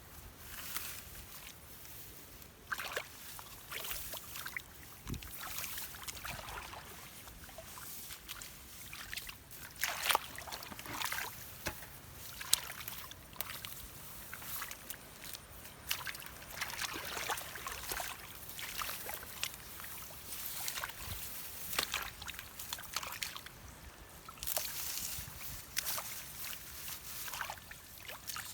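Shallow muddy water sloshing and splashing irregularly, with short bursts of trickling and dripping, as it is worked through by hand.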